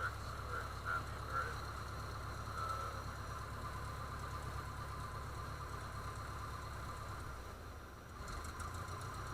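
The 1966 Cessna 150F's four-cylinder Continental O-200 engine running steadily, dipping briefly about eight seconds in before returning.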